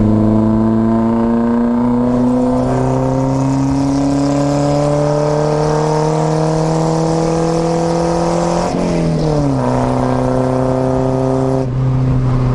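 Volvo 242GL's four-cylinder engine and exhaust, running through a newly fitted muffler, pulling under load with the pitch rising slowly as the car gains speed. About nine seconds in the pitch drops at a gear change. The engine then holds a steady note, with a brief break near the end.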